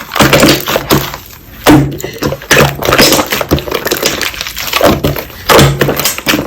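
Slime being squeezed, poked and folded by hand, making a dense run of crackling clicks and pops with a few louder squelches.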